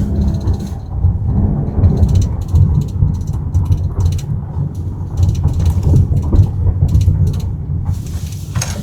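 Jeep Grand Cherokee cabin heard through a microphone at the left rear seat while driving over bumps: a heavy, continuous low rumble of the body jolting, with irregular clicking and rattling from plastic trim under the rear seat. It is the interior rattle over rough road that the mechanic traced to the rear seat-adjustment cable and a 3D floor mat rubbing against plastic trim.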